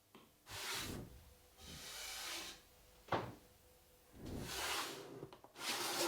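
Four long rubbing strokes, each lasting about half a second to a second, with a single sharp knock about three seconds in.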